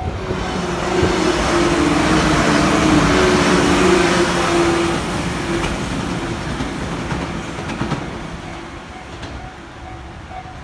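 JR West KuMoYa 145 and 113-series electric train running past on the rails: wheel and running noise with a steady hum, growing louder over the first few seconds and then fading away as the train moves off.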